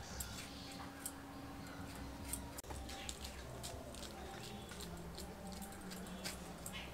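Faint, scattered scrapes and small clicks of a kitchen knife working through a raw green mango.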